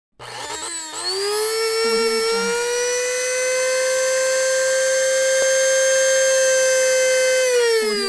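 Electric coffee grinder grinding roasted beans: the motor spins up to a steady high whine over the rattle of the beans. Near the end the pitch falls as the motor is switched off and winds down.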